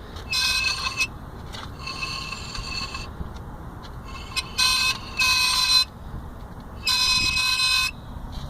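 Vauxhall Astra H brake disc squealing as it turns, in about five short high-pitched bursts of under a second each. The squeal comes from the bent metal disc guard behind the disc rubbing lightly against it.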